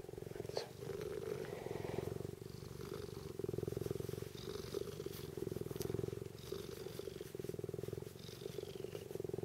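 Tonkinese cat purring steadily right at the microphone, a continuous fast-pulsing rumble.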